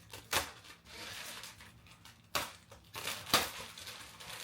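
Cardboard shipping box and packing material being handled and pulled at: rustling and scraping, with three sharp knocks, one soon after the start, one past the middle and the loudest near the end.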